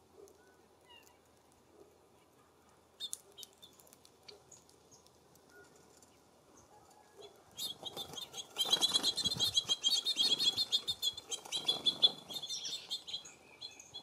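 Small songbirds at a seed feeder: a fast, dense run of high chirping notes starts about halfway through and goes on for about five seconds, with wings fluttering close by. A few light clicks come about three seconds in.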